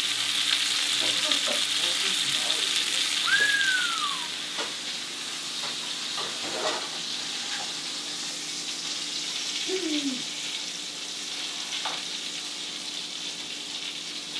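Goose breast steaks searing in a frying pan, sizzling steadily. The sizzle is loudest for the first few seconds, then eases a little. A short high squeal falls in pitch about three seconds in.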